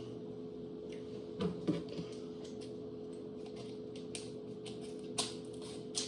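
Light, irregular clicking and tapping of hands working slime and small plastic pieces, a few sharper taps standing out, over a steady low hum.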